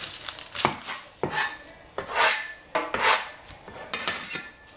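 A cleaver knocking several times on a plastic cutting board while an onion is trimmed, with scraping and rasping of the blade and the dry onion skin between the knocks.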